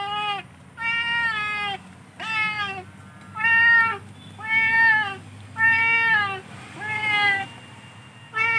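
Domestic cat meowing over and over, about once a second. Each meow is drawn out and drops in pitch at its end.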